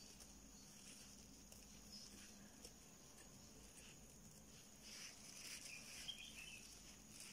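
Near silence with faint rustling and light ticks of yarn being worked with a crochet hook, a little louder about five seconds in.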